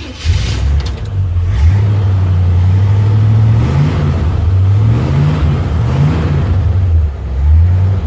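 A 1957 Chevrolet car's engine and exhaust under way, the engine note rising in pitch several times as the car accelerates. The exhaust runs evenly with no clacking, the sign that the exhaust manifold leak has been sealed by tightening its rusted bolts.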